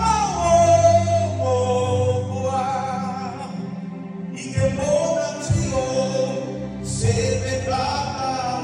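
Music: a singer holding long, wavering notes in three phrases over steady band accompaniment, played during a sound check.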